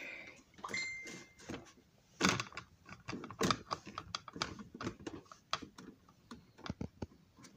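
Irregular light clicks and taps from a hand handling a small model building, with a brief thin high tone about a second in.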